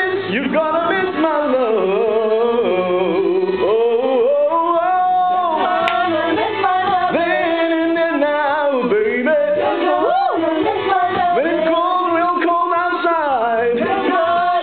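A man singing through a handheld microphone over backing music, holding long, wavering notes, as at karaoke.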